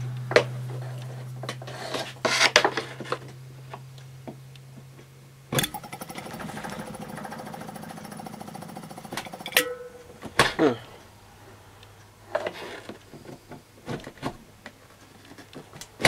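Refrigeration compressor motor powered up but failing to spin up: a steady mains hum, then a sudden click and about four seconds of harsh rattling buzz that cuts off with another click, with scattered knocks. The owner thinks it will not start because he drained all the oil out of it.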